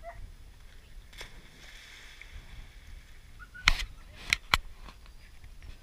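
A flat-coated retriever's dock-diving jump into a competition pool: three sharp slaps and splashes of water come close together between about three and a half and four and a half seconds in, over a faint steady hiss.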